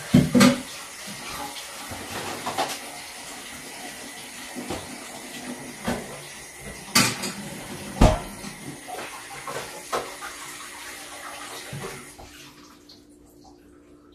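Kitchen tap running steadily into the sink, with a few sharp clanks of pots and dishes; the water shuts off near the end.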